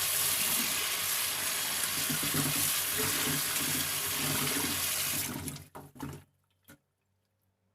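Kitchen tap running into a sink while a whole raw chicken is rinsed under the stream, the water shut off about five seconds in; then near silence with one faint click.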